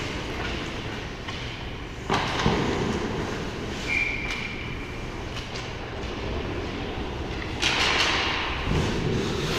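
Ice hockey play heard close to the goal in an echoing rink: skates scraping the ice, with knocks and thuds from sticks, puck and boards. A sudden thud about two seconds in, a short high tone about four seconds in, and a loud scraping hiss of skate blades near the end.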